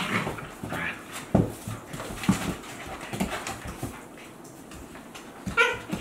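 Two Akita Inu dogs, a young adult and a two-month-old puppy, play-wrestling: panting and breathy play noises, a couple of knocks on the wooden floor around a second and a half and two seconds in, and one short whine near the end.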